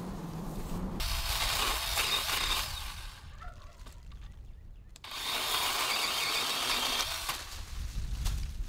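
DeWalt 20V Max cordless pole saw cutting a tree limb, its chain running in two bursts of about two seconds each with a short pause between.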